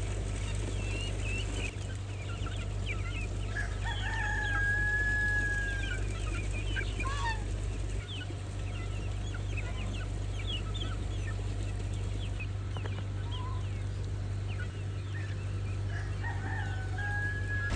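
Chickens clucking with many short calls, and a rooster crowing once in a long held call about four seconds in, over a steady low hum.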